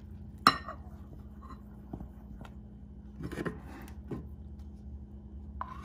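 Wooden spoon stirring thick, bubbly sourdough starter in a ceramic bowl, with a sharp knock about half a second in and scattered knocks and scrapes of the spoon and a stainless steel measuring cup against the bowl. A short ringing clink comes near the end.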